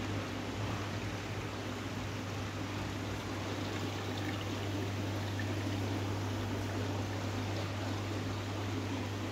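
Water running from inflow pipes into fish tanks, a steady splashing trickle, over a steady low hum.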